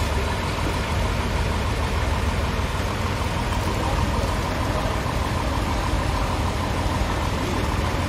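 Toyota 3.5-tonne forklift engine running steadily as the forklift drives slowly with a load of wood slabs on its forks.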